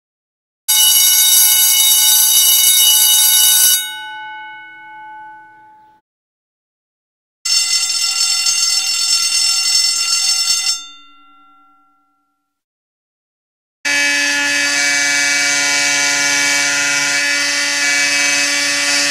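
A Simplex 4090 vibrating school bell rings for about three seconds and then rings down as it stops. A larger 10-inch Simplex bell then rings for about three seconds and rings down the same way. From about two thirds of the way in, a Simplex 4051 fire alarm horn sounds one continuous steady tone.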